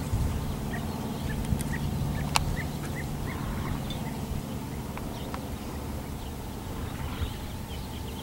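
Birds chirping in short repeated calls over a steady low rumble, with a few sharp clicks.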